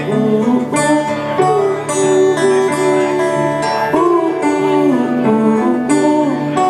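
Acoustic blues band playing an instrumental break between sung verses: acoustic guitar strumming under a melodic lead line that bends in pitch.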